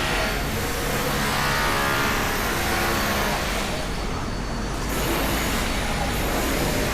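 Motor vehicles passing close by on a street, their engines and tyres swelling and fading twice.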